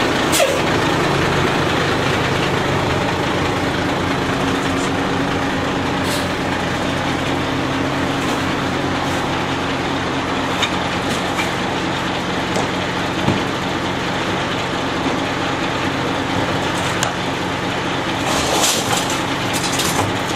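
Rear-loader garbage truck's diesel engine idling steadily. A few sharp knocks come through it, and near the end a cluster of clanks as trash cans are tipped and banged against the hopper.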